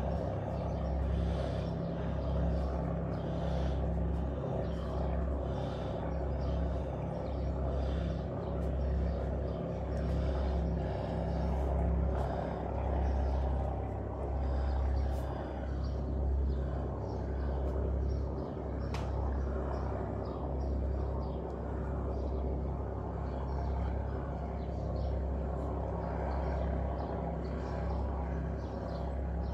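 Steady low outdoor rumble that swells and fades slightly, with a few faint clicks and no distinct events.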